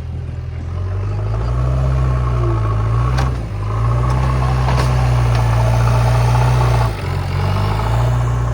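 Backhoe loader's diesel engine working under load, revving up and easing off, its note dipping briefly about three seconds in and again near seven seconds. A couple of sharp metallic clanks sound about three and five seconds in.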